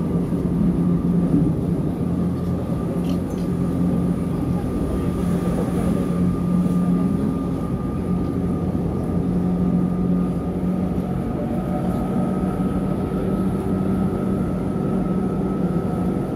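Athens Metro Line 1 electric train running at steady speed, heard from inside the carriage: a continuous rumble of wheels on track with a steady low hum and a thin high whine that rises slightly about three-quarters of the way through.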